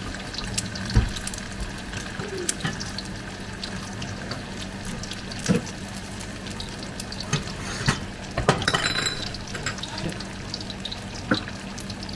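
Water running from a kitchen tap, with a few sharp clinks and knocks of kitchenware and a steady low hum underneath.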